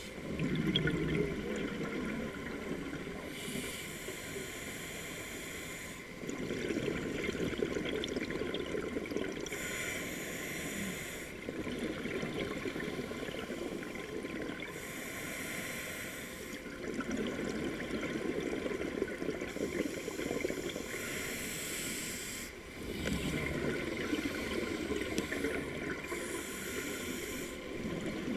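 A scuba diver breathing through a regulator underwater: a hiss on each inhale alternating with a low rush of exhaled bubbles, about five breaths at a slow, even pace.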